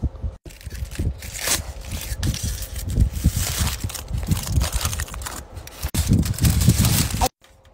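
The wrapping of a Lindt Excellence chocolate bar being torn open and unfolded by hand: continuous crinkling and tearing with dull knocks from handling, stopping suddenly near the end.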